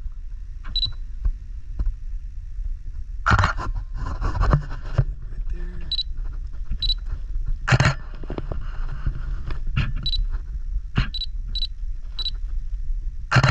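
A digital camera beeping: short, high single-pitch blips several times, with a few sharp shutter clicks. There is rustling handling noise a few seconds in, over a steady low rumble.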